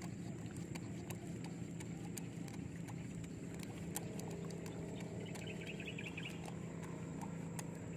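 Steady low hum with scattered faint clicks; about five seconds in, a short high trill lasting about a second.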